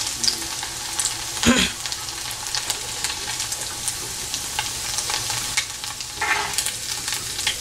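Hot oil sizzling and crackling in a frying pan as deep-fried, breadcrumb-coated chicken balls are scooped out with a slotted metal spoon, with one louder knock about one and a half seconds in.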